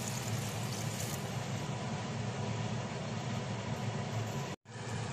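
Steady low rumble and hiss of a kadai of chicken and potato curry cooking over a gas stove burner, just after water has been poured in. The sound breaks off for an instant near the end.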